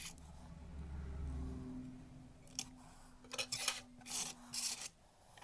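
Hands handling small brass watch parts and a clear plastic parts dish: a run of short rustling, scraping knocks in the second half, over a faint steady hum.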